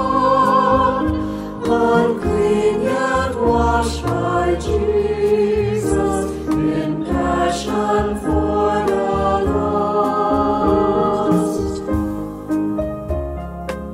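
A group of voices singing a hymn in unison, accompanied by piano, upright bass and drums. The voices stop shortly before the end, leaving the piano playing on.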